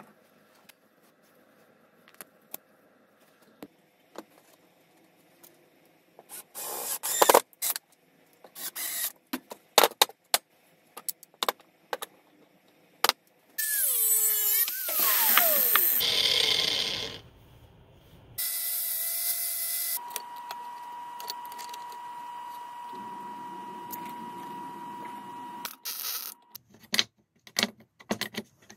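Workshop tool sounds on a steel part: scattered clicks and knocks, then an angle grinder cutting steel for a few seconds about halfway through, with a falling whine. A power tool then runs steadily for several seconds, and more clicks and knocks follow near the end.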